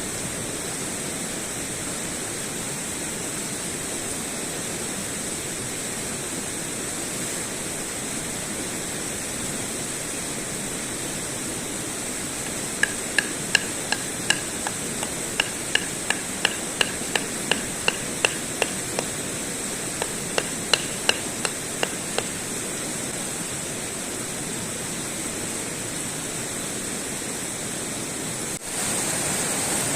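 A run of about twenty sharp hammering blows, roughly two a second, each with a slight ringing, struck over a steady rushing background noise. The rushing noise steps up in level abruptly near the end.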